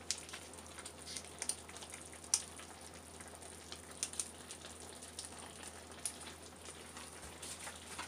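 Chicken stew simmering in a pan: a faint, even bubbling with a few scattered small ticks and pops.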